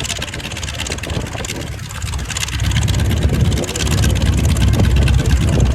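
Low engine rumble with a fast flutter and hiss over it, growing louder about two seconds in.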